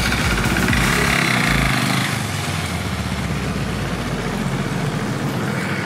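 KTM Duke 390's single-cylinder engine running as the motorcycle pulls away and rides off.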